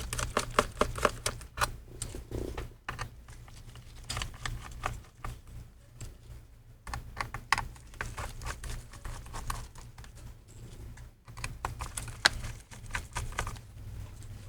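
Irregular runs of small sharp clicks and ticks as a Pentalobe P5 screwdriver unscrews the tiny bottom-case screws of a MacBook Pro A2251 laptop, over a steady low hum.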